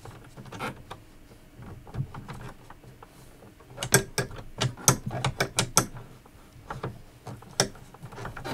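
Plastic embroidery hoop being fitted back onto an embroidery machine's carriage arm: a series of sharp clicks and rattles, with a quick run of them about four to six seconds in and one more near the end.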